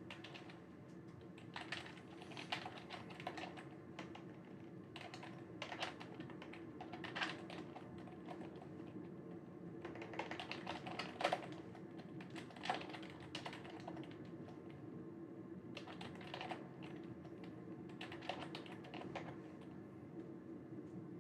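Typing on a computer keyboard in short bursts of rapid keystrokes with pauses between, over a steady low hum.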